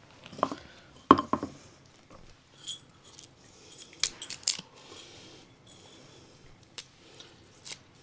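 Kitchenware being handled while cooking: scattered clinks and knocks of utensils, pots and containers, the sharpest about a second in and a quick cluster of several around the middle.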